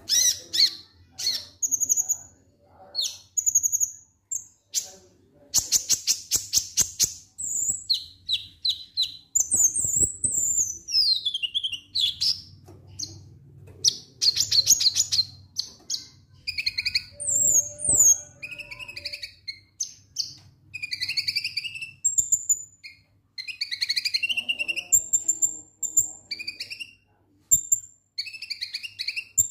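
Male Van Hasselt's sunbird (kolibri ninja) singing its 'ngek-ngek' song: quick bursts of high chirps, short fast rattling trills and down-slurred whistles, with brief pauses between phrases.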